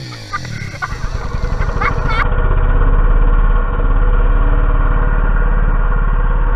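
ATV engine running steadily and loud, close to the microphone.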